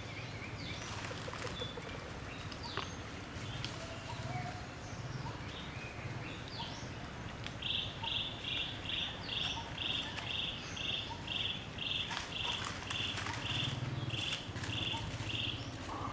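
Outdoor birdsong: scattered short chirps, then from about halfway a bird repeating one short high note about twice a second, some fifteen times, stopping shortly before the end. A low steady hum runs underneath.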